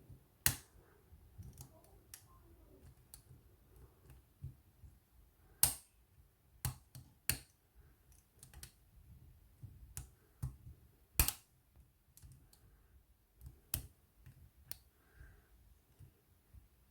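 Lock pick working the wafers of a cabinet wafer lock: irregular small metallic clicks, with a few sharper ones now and then.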